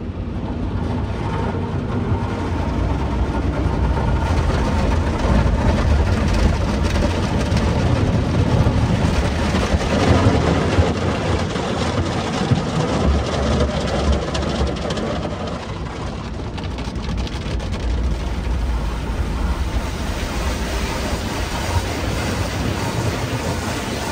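Automatic car wash heard from inside the car's cabin: water and soap spraying over the body with a steady, dense rumble of the wash machinery, growing louder for several seconds in the middle.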